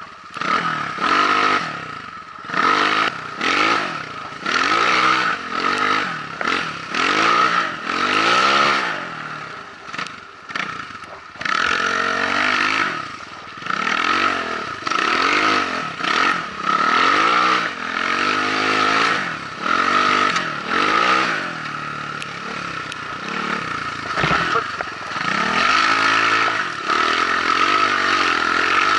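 BSE J1 enduro motorcycle engine being ridden hard, the revs rising and falling over and over, roughly once a second, as the throttle is worked on and off.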